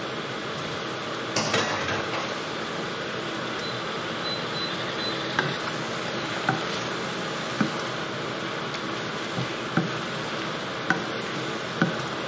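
Chicken pieces and curry sauce sizzling in a frying pan. A wooden spatula knocks against the pan about once a second from the middle on as the chicken is stirred into the sauce, with a brief clatter about a second and a half in.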